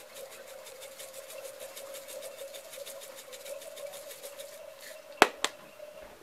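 Shaker jar of crushed red pepper flakes shaken over a pot: a quick, even, dry rattle of about eight shakes a second, stopping near the end, followed by two sharp clicks, the loudest sounds here. A faint steady hum sits underneath.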